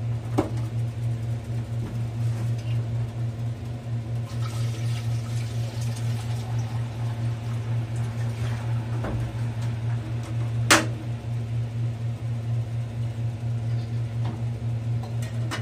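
A steady low appliance hum, with two sharp knocks: a light one about half a second in and a louder one near eleven seconds.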